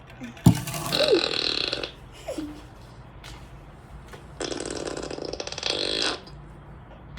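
Novelty bodily-noise sound effects (burp and fart sounds) played from a phone. A click, then a short buzzy burst that falls in pitch, and later a longer buzzy one lasting about two seconds.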